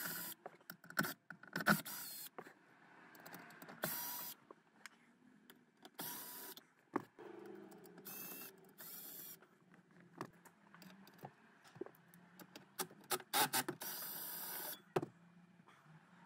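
Cordless electric screwdriver whirring in several short bursts as it backs screws out of a dashboard bracket, the longest run about a second long near the end, with small clicks and taps of screws and plastic in between.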